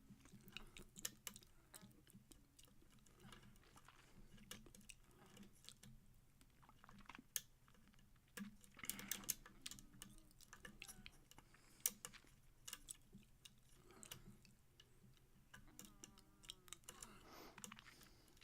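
Lock pick and tension wrench working the pins of a pin-tumbler lock: faint, irregular small metallic clicks and scrapes as the pins are lifted and set.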